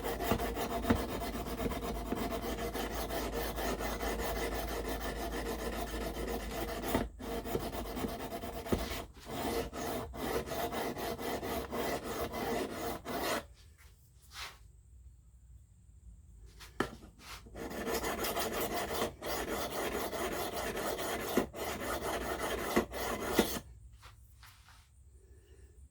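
S35VN steel knife blade being ground on a sharpening stone to take chips out of the edge: a continuous rasping scrape of back-and-forth strokes. It pauses for about four seconds midway, then resumes and stops a couple of seconds before the end.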